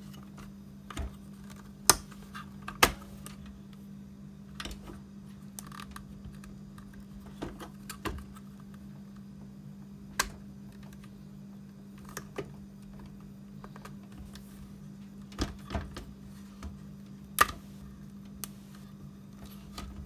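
Irregular plastic clicks and knocks as the pins and tabs of a Dell plastic drive caddy are snapped onto a Western Digital Blue 3.5-inch hard drive, about a dozen in all, the loudest near the start and near the end, over a steady low hum.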